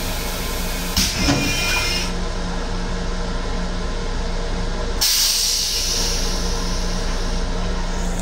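The M7 railcar toilet's flush hisses into the stainless bowl: a short whistling spray about a second in, then a longer, stronger hiss about five seconds in that fades away. The car's steady low hum runs under it.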